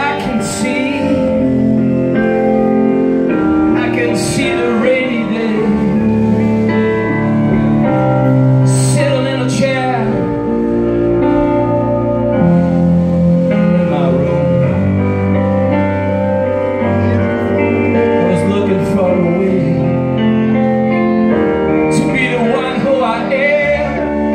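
Live blues band: a man sings over electric guitar, violin and drums, with sustained violin lines and cymbal hits several times.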